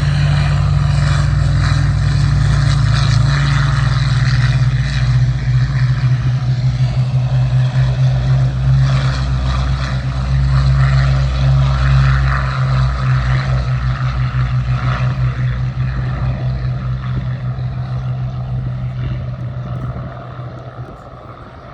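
Rolls-Royce Merlin V12 engines of Hawker Hurricanes running at high power, a deep steady drone that swells and then fades away over the last few seconds.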